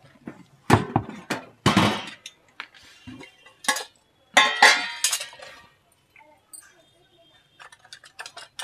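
Metal kitchen utensils clinking and clattering: a spoon knocking against steel pots or spice containers in a series of sharp, irregular clanks, loudest in the first five seconds, with a few lighter clicks near the end.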